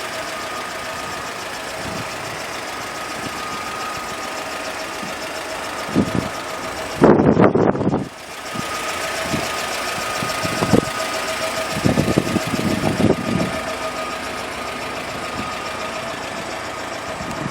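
The GAZelle-Business's UMZ-4216 2.9-litre four-cylinder petrol engine idling steadily with a thin whine. A loud burst of noise comes about seven seconds in, and a run of sharper knocks about twelve to thirteen seconds in.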